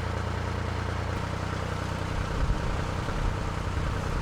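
Narrowboat's engine running at low revs, a steady low hum whose note changes about a second in. From about two seconds in, wind buffets the microphone with uneven low rumbles.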